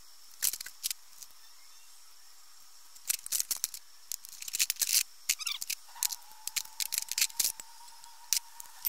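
A string of sharp metallic clicks and clinks from hand tools and bolt hardware being handled at a concrete block. They are sparse at first and come thick and fast from about three seconds in.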